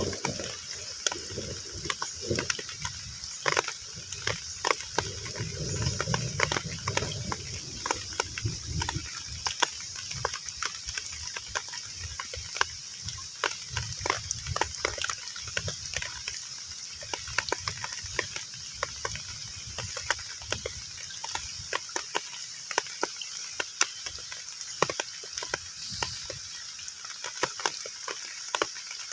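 Heavy rain falling on a pond's surface: a steady hiss with many separate drops splashing and ticking, and a low rumble underneath during the first third.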